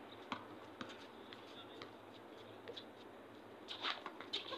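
Faint steady hiss with scattered light scuffs and clicks of players' footsteps on the court surface, a few louder ones close together near the end.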